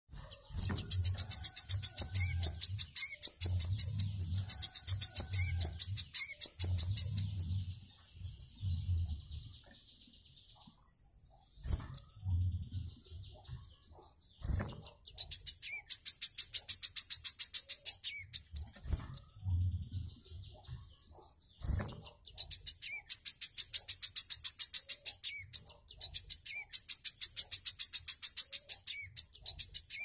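Caged wiceh sunbird singing: a fast, high, trilled string of rapidly repeated notes in long loud runs. The song drops to quieter, broken twittering midway, then comes back in loud runs near the end. Low thumps sound under the first part, and a few sharp knocks come in the middle.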